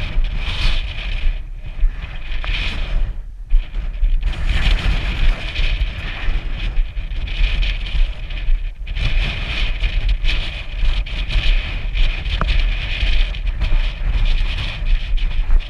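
Wind buffeting the camera microphone: a loud, steady rumble with gusts, easing briefly about three seconds in and again near nine seconds.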